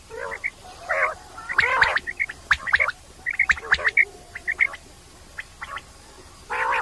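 Common quail calling: harsh, rasping calls in short bursts, at the start, around one second in, twice near two seconds and again near the end, with clusters of short clear notes between them.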